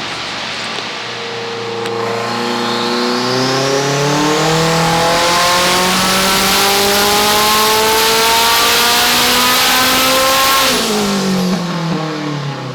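Turbocharged race car engine making a full-throttle pull. Its note climbs steadily for about nine seconds with no gear change, and a high whistle rises with it early on. The note drops away sharply as the throttle is lifted near the end.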